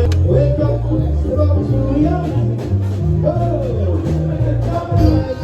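Background music: a song with a steady, repeating bass line and a singing voice.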